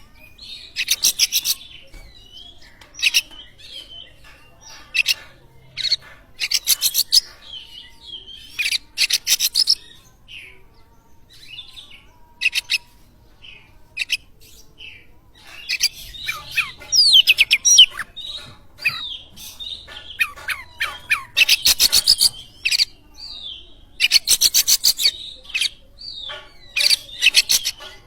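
Oriental magpie-robin (kacer) singing in loud bouts: fast, stuttering rattles alternating with whistled, warbling phrases, separated by short pauses.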